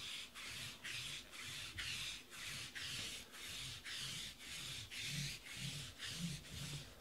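A lint roller rolled back and forth over a black table mat, an even rubbing stroke about twice a second.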